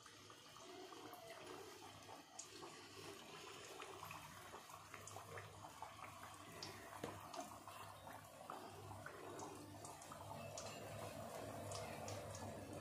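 Maida-dough flower snacks deep-frying in hot oil in a steel kadai: a faint, steady sizzle with small pops and crackles, slowly growing a little louder.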